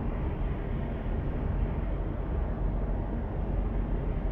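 Steady road and engine noise heard inside a car's cabin while cruising at about 60 km/h on a motorway, a low even rumble with no sudden events.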